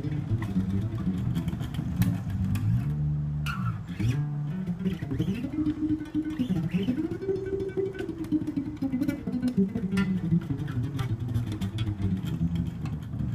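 Cort A5 five-string electric bass played fingerstyle through a hi-fi speaker: a run of low plucked notes, with several notes sliding up and down in pitch in the middle.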